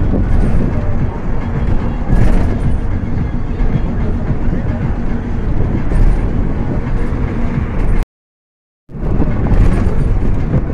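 Steady rumbling road noise and wind from a moving vehicle, heaviest in the low end. The sound cuts out completely for just under a second about eight seconds in, then returns.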